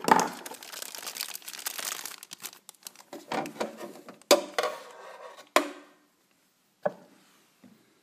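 Plastic bag crinkling and rustling as it is handled, with two sharp knocks around the middle and a fainter one later.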